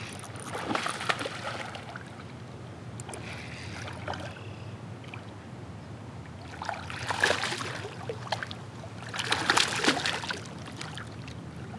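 A hooked smallmouth bass thrashing and splashing at the water's surface in three bouts, at the start, about seven seconds in and again near ten seconds, as it is fought up beside the kayak.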